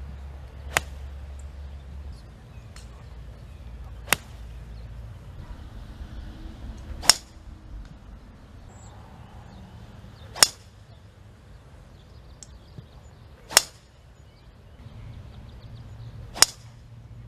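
Golf club striking a ball on a driving range: six sharp, clean strikes about three seconds apart.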